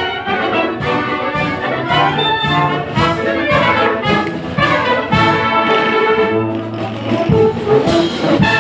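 A full wind band of clarinets, saxophones, trumpets and trombones playing together in sustained chords over a steady beat.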